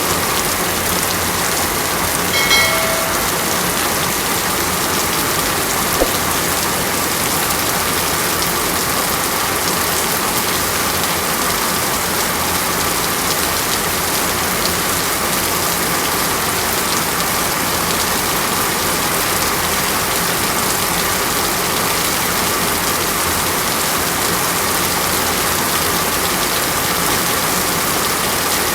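Steady, even rush of falling water, like rain pattering on a surface, with no let-up. A brief pitched sound comes about two and a half seconds in, and a single click about six seconds in.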